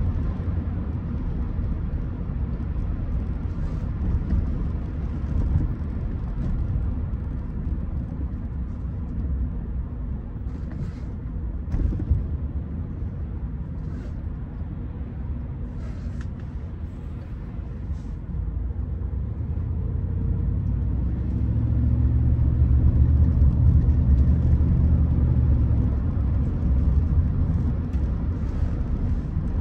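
Rolls-Royce Silver Spirit's V8 engine and road noise heard from inside the cabin while driving: a steady low rumble that grows louder for several seconds about two-thirds of the way through.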